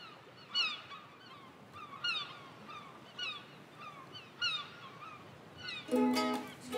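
Birds calling: a string of short, falling calls, about one a second. Music with held notes comes in near the end.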